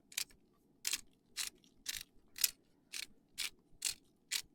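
Pepper grinder being twisted over ground beef, a crisp grinding rasp repeated about twice a second.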